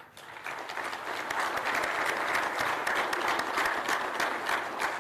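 A large audience applauding: many hands clapping, swelling over the first second or so and then holding steady.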